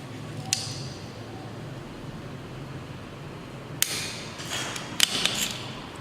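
Optical fibre cleaver being worked to cut a glass fibre: a light click about half a second in, a sharp snap near four seconds, and a quick cluster of clicks around five seconds.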